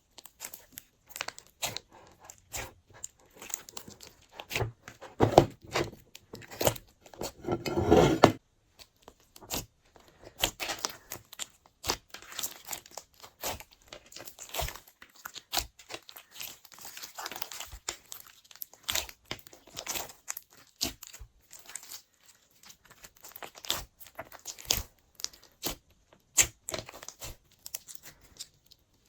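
Glossy slime being mixed and squished by hand, giving a steady irregular run of sticky clicks and pops, louder and fuller for a few seconds near the start.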